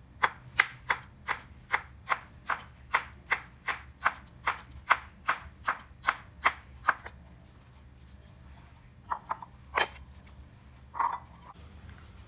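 Knife chopping on a cutting board in a steady run of sharp strokes, about two and a half a second, stopping about seven seconds in. A few scattered knocks follow.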